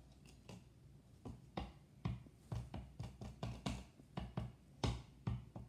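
Map puzzle pieces clicking and knocking against each other and a wooden tabletop as they are handled and sorted: a quick irregular run of sharp taps, several a second, starting about a second in.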